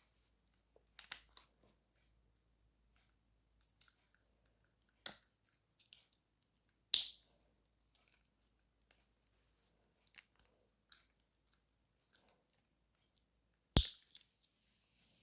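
Sharp plastic clicks and snaps from handling a small mobile phone and its parts. There are three loud clicks about 5, 7 and 14 seconds in, with faint ticks and light rustling in between.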